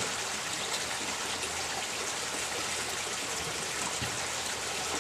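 Steady trickle and splash of running water from a backyard garden water feature.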